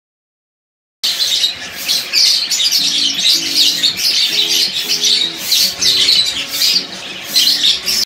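Budgerigars chattering and warbling in quick, busy chirps that start suddenly about a second in. Low background music plays underneath.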